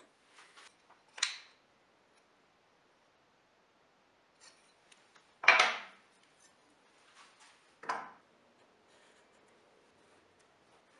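Marking-out tools handled on a wooden workbench: a combination square and pencil picked up, slid and set down, giving a few short scrapes and knocks. The loudest comes about five and a half seconds in.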